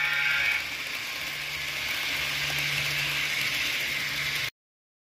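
HO scale model train with DCC-sound FP9 diesels running on the track. The sound decoder's horn tails off in the first half-second, followed by a steady running hiss with a low hum. The sound cuts off suddenly about four and a half seconds in.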